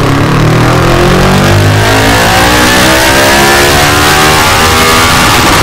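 Kawasaki Versys 650 parallel-twin engine running through a Delkevic round carbon exhaust, revs climbing steadily so the exhaust note rises in pitch.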